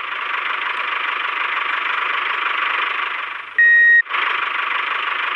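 Small motor of a DIY mini tractor running steadily with a hissy whir. About three and a half seconds in it stops for half a second while a single steady beep sounds, then runs on.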